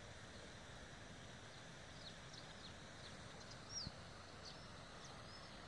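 Near silence with a faint steady hiss, and scattered short, high chirps of small birds from about two seconds in, some sliding downward. One soft thump about four seconds in.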